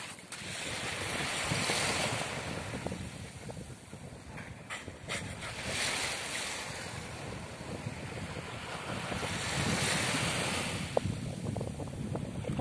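Small waves washing onto a pebbly beach, swelling and fading about every four seconds, with wind rumbling on the microphone. A single sharp click near the end.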